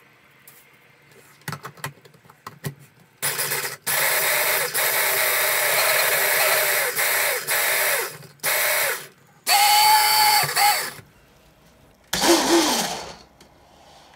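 Electric hand blender running on its mini chopper attachment in five pulses, the longest about four seconds, chopping pieces of cake layer into crumbs. It starts with a few sharp clicks as the motor unit is fitted onto the chopper bowl.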